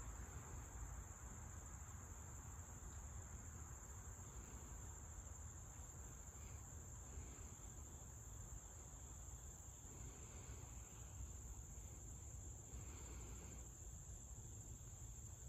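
Insect chorus giving a faint, steady, high-pitched drone that never breaks, over a low rumble.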